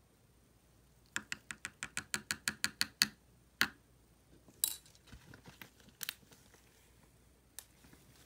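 A metal spoon tapping on a plastic mixing tub to shake gold mica powder off it. First comes a quick run of about a dozen taps, about seven a second, then a few single clicks spaced out.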